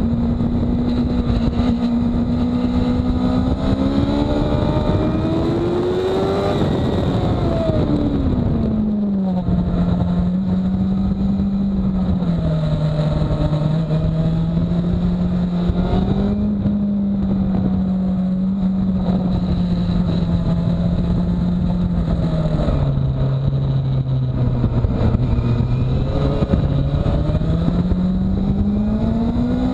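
Sport motorcycle's engine heard from a camera mounted on the bike itself while it is ridden hard around a race track. The engine holds a steady pitch, revs up, then drops sharply about seven seconds in, runs lower and wavers through the middle, and climbs again near the end.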